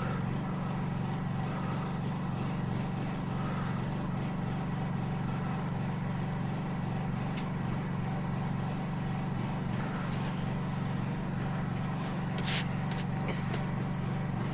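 An engine running steadily at idle, an even low hum, with a few faint knocks or clicks near the end.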